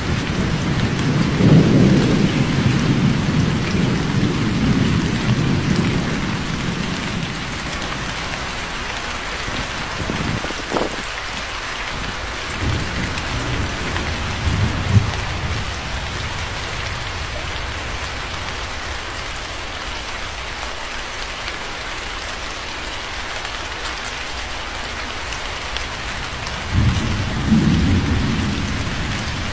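Steady heavy rain hissing, with rolling thunder. A long low rumble at the start fades over several seconds, there is a short sharp crack about ten seconds in, and another rumble of thunder builds near the end.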